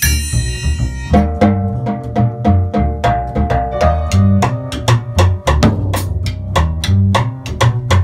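Jazz drum kit played with sticks: a busy, irregular stream of snare, bass drum and rim strikes, with a cymbal ringing out and fading about a second in. A bass plays a line of low notes underneath.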